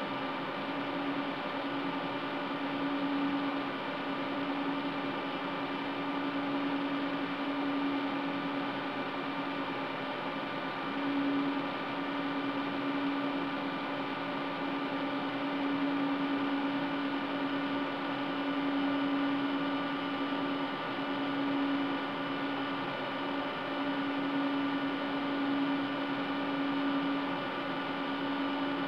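Cisco Catalyst 5509 switch chassis running while it starts up: its cooling fans and power supplies give a steady whir with a humming tone that swells and fades slightly.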